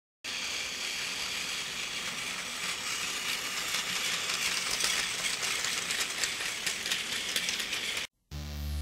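Battery-powered Tomica Plarail Thomas & Friends toy train running on blue plastic track: a steady rattling clatter of its motor, wheels and freight cars, with many fine ticks. It stops abruptly about eight seconds in.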